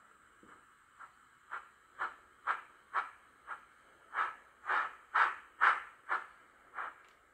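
Steam chuffs from a sound-equipped H0e narrow-gauge model steam locomotive as it pulls its coaches along. The puffs are evenly spaced, about two a second, grow louder after the middle and stop shortly before the end.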